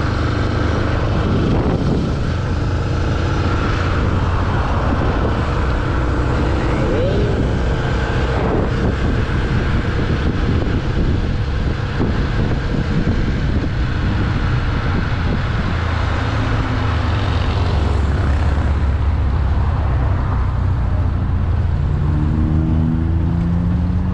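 Single-cylinder four-stroke engine of an up-specced Yamaha Y15ZR, on its stock exhaust, running under way. Heavy low wind rumble on the microphone is mixed in. The bike slows down near the end.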